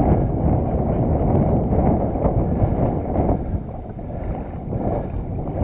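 Hunter wading through a marsh, his steps swishing and sloshing through water and grass, with wind rumbling on the microphone.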